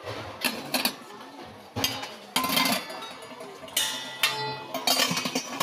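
Background music with sharp percussive hits.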